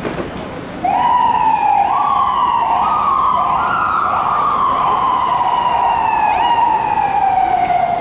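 Emergency vehicle siren starting abruptly about a second in. Its pitch climbs in several steps over about three seconds, then falls slowly and steadily.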